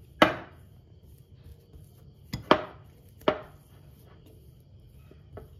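Steel fork mashing a boiled potato mixture in a glass bowl, the tines knocking against the glass a few times: once just after the start, twice in quick succession about two and a half seconds in, again after three seconds, and faintly near the end.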